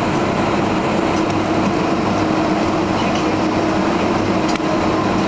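Steady cabin noise of a Boeing 767-200 taxiing after landing: the engines at idle and the rolling airframe make an even rumble over a constant low hum, with a couple of faint clicks.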